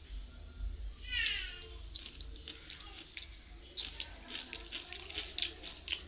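Fingers mixing rice and cooked bottle gourd greens on a stainless steel plate: wet squishing with small clicks and taps, the sharpest about two seconds in and again near the end. A short high-pitched call rises over it about a second in.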